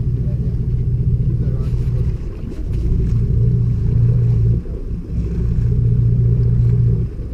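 Steady low rumble of a fishing boat's engine, mixed with wind on the microphone, dipping briefly twice.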